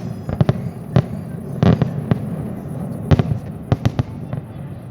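Display fireworks shells bursting: an irregular series of about ten sharp bangs, several coming close together near the end.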